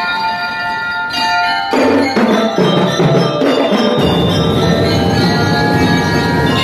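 Student drum and lyre corps playing: a bell-lyre melody in ringing metal tones, with marching drums joining in under it about two seconds in and the full corps playing together from there.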